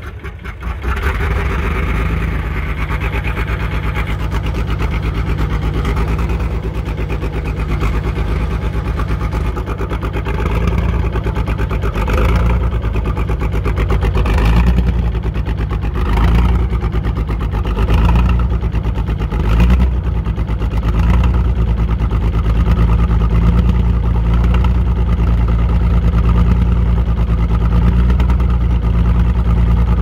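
Old White farm tractor's engine running at raised throttle just after an ether-assisted cold start, with occasional uneven surges in its note as it warms up.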